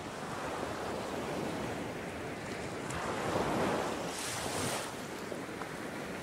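Surf washing on a sandy beach, with wind on the microphone. The noise swells about halfway through, with a brief higher hiss about four seconds in, then eases.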